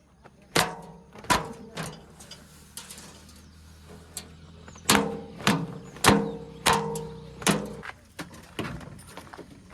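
Repeated loud metal clanks with a brief ringing after each, about eight in all: three near the start and five closely spaced from about five seconds in. They come from a JCB 3DX backhoe loader at work loading mud, over the low steady hum of its diesel engine, which fades about five seconds in.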